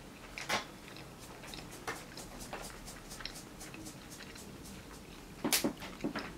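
Close-up eating sounds: faint scattered mouth clicks and chewing while a bite of sushi is taken from wooden chopsticks, with a louder cluster of wet mouth noises about five and a half seconds in as the piece is chewed.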